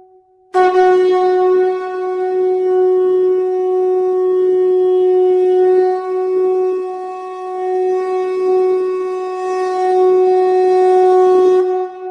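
Conch shell (shankha) blown in one long, steady note, starting sharply about half a second in and held for about eleven seconds before stopping.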